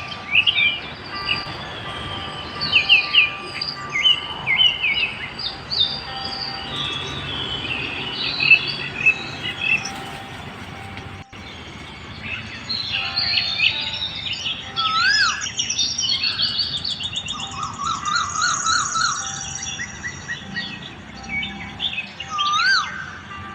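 Many high, bird-like chirps and whistles calling over one another, some as short rising-and-falling whistles and a quick rapid trill, with a sudden break about eleven seconds in.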